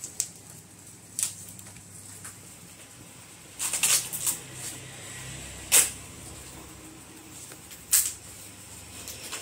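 Scattered sharp clicks and taps of hands working a laptop's touchpad and keys to shut it down: a cluster about four seconds in, the loudest single click near six seconds and another near eight.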